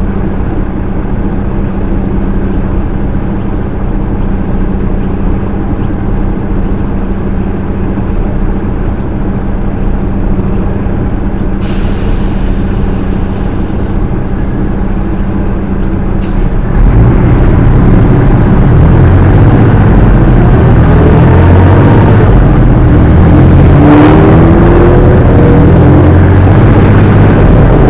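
Semi-trailer truck's diesel engine idling steadily, then about 17 seconds in it gets louder as the truck pulls away under load, the engine note rising and falling in pitch. A short sharp click sounds near the end.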